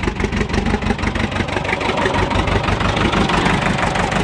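International backhoe's diesel engine running with a steady, even chug just after a cold start; the owner calls it "choochin'".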